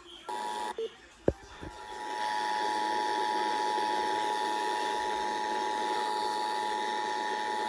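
Emergency Alert System two-tone attention signal: two steady tones just below 1 kHz sounding together as one harsh, continuous alarm, marking the start of an EAS test. It is heard off the air: a sharp click just over a second in, and a hiss that swells in under the tone about two seconds in.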